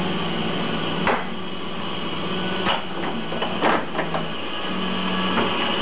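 Rancilio commercial espresso machine humming steadily as it runs, with a few sharp clinks and knocks of portafilter and cups, the first about a second in and a cluster past the halfway point.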